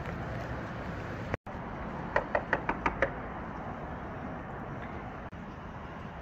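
Six quick knocks on the side of a camper van in about a second, over steady street background noise.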